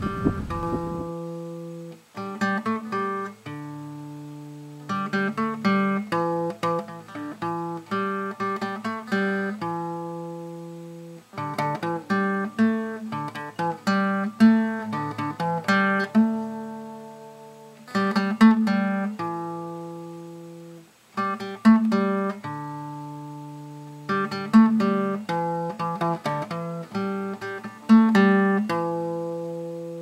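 Acoustic guitar music: a picked melody in repeating phrases, each note ringing out and fading, with short pauses between phrases.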